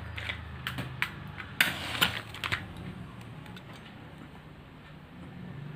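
Matchstick and matchbox being handled and a match struck: a run of sharp clicks and short scrapes in the first two and a half seconds, then only a low steady hum while the lit match is held to the lamp wick.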